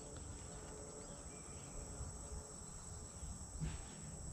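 Insects, crickets or similar, trilling steadily in one continuous high-pitched note, with a faint low rumble underneath.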